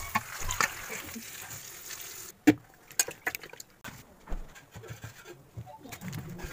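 Tap water pouring steadily into a steel bowl of brinjals, cutting off suddenly about two seconds in. A single sharp knock follows, then scattered lighter clinks and taps of vegetables and kitchenware being handled.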